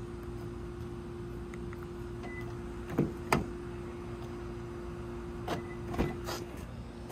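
Lexus IS250 front door being opened with keyless entry: two sharp clicks about three seconds in as the locks release, then more clicks and a clunk near the end as the handle is pulled and the latch lets go. A steady low hum runs underneath.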